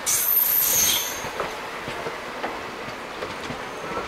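Passenger coaches' steel wheels rolling past on the next track, with a loud high-pitched squeal for about the first second, then single knocks as the wheels cross rail joints.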